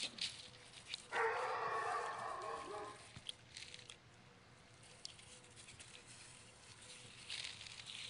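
Cavalier King Charles Spaniel puppy giving a drawn-out play growl for about two seconds while it tugs at a toy. Light scrabbling and clicking come near the start and again near the end.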